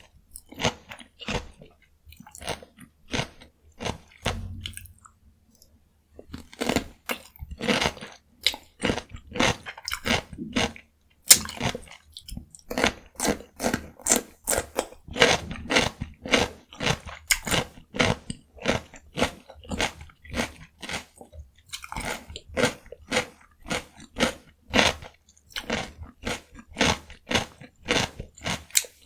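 Raw cucumber being bitten and chewed close to the microphone: crisp, wet crunches at two to three a second, pausing for a couple of seconds around five seconds in, with one sharp crack just after eleven seconds.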